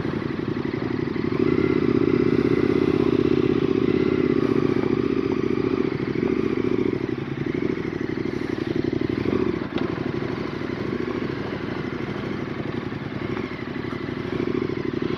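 KTM 1290 Super Adventure S V-twin engine running as the bike rides along at low speed, getting a little louder about a second and a half in, then easing back.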